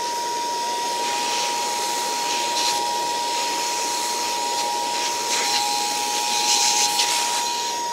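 Small handheld vacuum cleaner running with a steady high whine over a hiss, sucking dust out of a laptop's motherboard and cooling heatsink. The hiss swells louder briefly a few times as the nozzle is moved over the parts.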